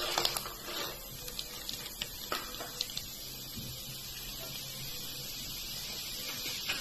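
Split chana dal (kadala parippu) poured into hot oil and deep-frying. At first there are crackles and pops as the lentils hit the oil, and over the first few seconds this settles into a steady sizzle.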